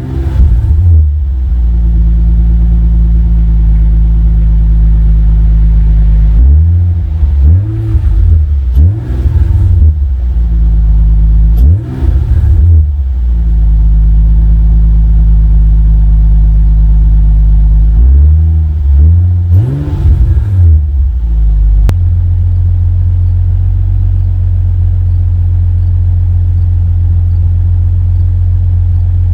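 Infiniti G35's 3.5-litre V6 running with test pipes in place of the catalytic converters, idling loudly and revved in several quick throttle blips. A steady idle holds through the last seven seconds or so.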